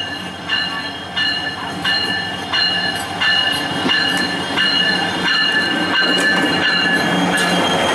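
EMD diesel-electric locomotive rolling slowly past, its wheels squealing in high, repeated screeches. Clicks of the wheels over the rail joints come about every half second or so, over the low hum of the diesel engine.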